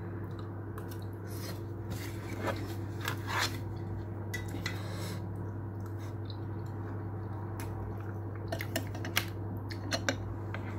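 Eating sounds: chewing, with scattered light clicks of a metal fork against a plate, over a steady low hum.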